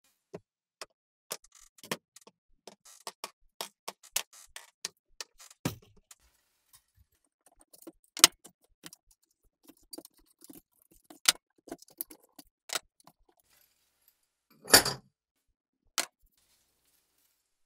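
A scattered run of small, sharp metal clicks and clinks: steel C-clamps with sliding T-bar handles being loosened and taken off a wooden block on a workbench. About fifteen seconds in comes one longer, louder noise.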